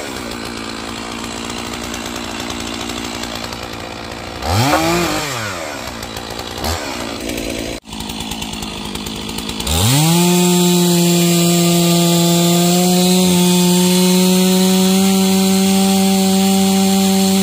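Stihl MS461 two-stroke chainsaw: it runs low for several seconds with a couple of brief throttle blips. About ten seconds in it revs up to a steady, loud full-throttle note.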